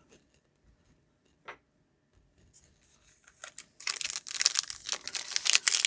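Foil trading-card pack wrapper being torn open and crinkled, a dense crackling rustle that starts about four seconds in after a near-quiet stretch with one small click.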